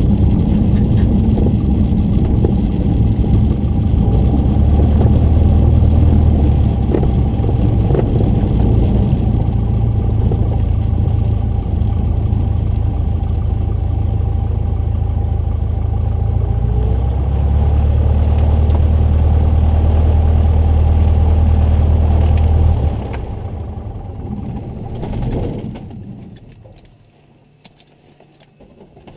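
Cessna 150's Continental O-200 four-cylinder engine and propeller, heard from inside the cockpit, running at low power with a couple of small changes in engine speed. About 23 seconds in, it is shut down, and the sound dies away over a few seconds as the propeller stops.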